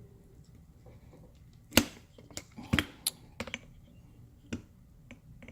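A string of sharp clicks and knocks as a leg is slid onto a hinge and its small parts are worked into place by hand. The loudest knock comes about two seconds in, and a few more follow over the next few seconds.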